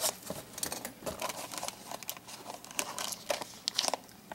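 A cardboard trading-card blaster box being handled and turned over by hand: irregular light taps, scrapes and crinkling.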